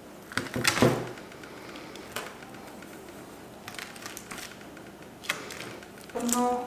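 Knife cutting through a slab of almond-chocolate biscuit dough on a baking tray: a few short scraping strokes, the loudest cluster about a second in, then fainter ones spread apart.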